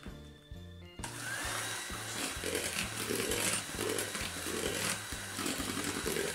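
Electric hand mixer switched on about a second in and running steadily, its beaters whisking flour into egg-and-sugar batter in a glass bowl. Background music with low repeating notes plays throughout.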